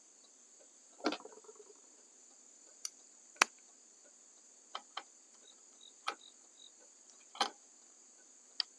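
Scattered light clicks and taps, about eight over several seconds, from handling a turn signal bulb and its socket in the lamp housing. The first carries a brief rattle. A steady high-pitched whine runs underneath.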